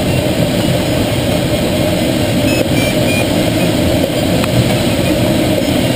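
Steady rush of air around the cockpit of a Schweizer 1-34 glider on aerotow, with the drone of the tow plane's engine ahead mixed in.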